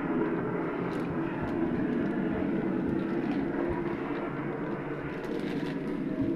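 A steady mechanical drone that starts abruptly and holds, a low hum with a rushing hiss over it.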